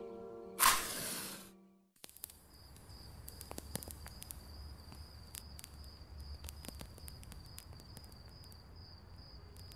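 A match struck once, a short sharp scratch about half a second in, as the music dies away. After a moment's hush comes a faint night ambience: a steady high cricket trill, a low rumble and scattered small crackles.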